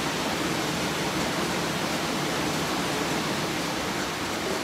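Steady, even rushing noise of workshop machinery running in the background.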